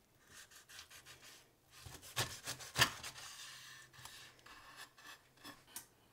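Chef's knife sawing through a toasted-bread sandwich on a wooden cutting board: crisp, scratchy rasps of the blade through the crust, loudest about two to three seconds in with one sharp crunch, then lighter rasps.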